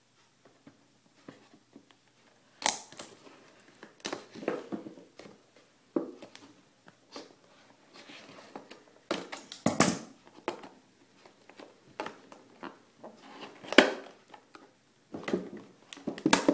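Cardboard packaging being cut with scissors and pried open by hand: irregular snips, scrapes and crackling of paperboard, with several louder sharp snaps scattered through.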